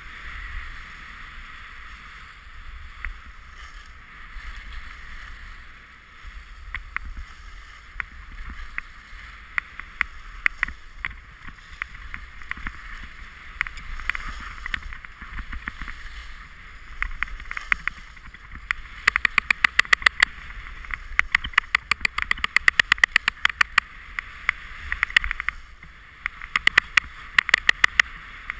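Skis sliding down a snow slope: a steady hiss, joined by rapid, dense clicking from about two-thirds of the way through.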